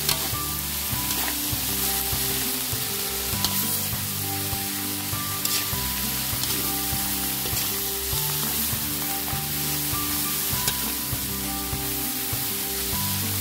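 Wild fern shoots (midin), chicken, shrimp and egg sizzling in a hot pan while being stirred, with a few sharp spatula clicks against the pan. Background music plays underneath.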